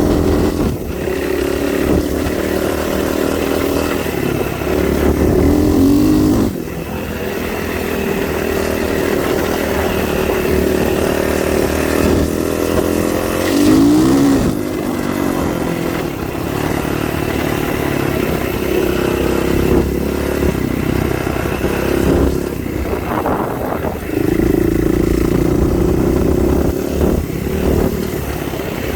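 A motor vehicle engine running continuously while driving a dirt road. Its pitch shifts up and down with the revs, most clearly about six and fourteen seconds in, and there are a few brief knocks.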